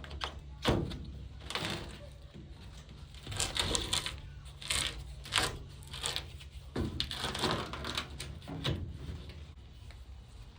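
Irregular clicks and knocks mixed with short scraping, rustling bursts of hands handling hard objects, over a low steady hum.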